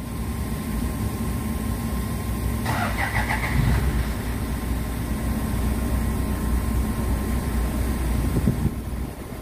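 Toyota Fortuner engine starting up and running at a steady idle, with a brief sharper, higher sound about three seconds in.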